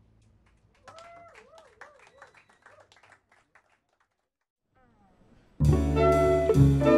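A quiet stretch with a faint wavering tone and soft clicks, then about two thirds of the way in the full chamber-jazz ensemble of winds, strings, piano, guitar, bass and drums comes in loudly all at once.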